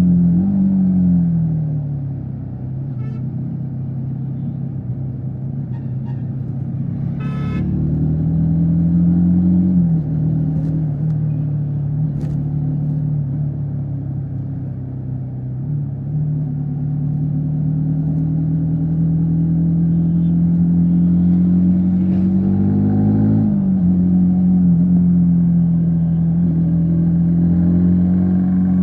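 Yamaha MT-15 V3's 155 cc single-cylinder engine and exhaust running at highway speed, the pitch dipping and then settling or climbing again three times, near the start, about ten seconds in and about twenty-three seconds in. A vehicle horn toots briefly about seven seconds in.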